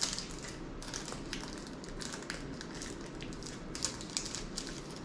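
Crinkling and crackling of a Hershey chocolate bar wrapper as it is handled and pulled open: many short, irregular crackles.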